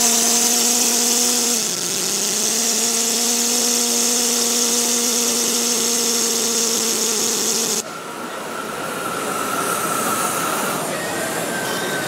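Steam hissing loudly from a live-steam model locomotive, with a steady low tone running under it that dips briefly about two seconds in. It cuts off abruptly about eight seconds in, leaving quieter hall background with faint higher tones.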